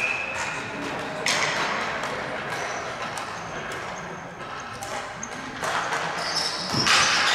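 Ball hockey play: sharp clacks of sticks and the ball on the floor and boards, sneakers squeaking, and players' voices. The noise swells suddenly about a second in and again near the end.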